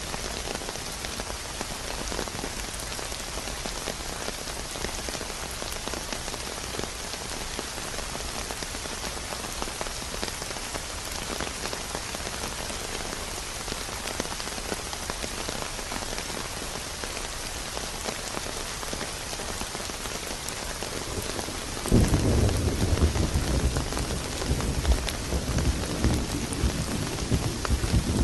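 Steady rain hissing on a surface, with a roll of thunder breaking in suddenly about three-quarters of the way through and rumbling on.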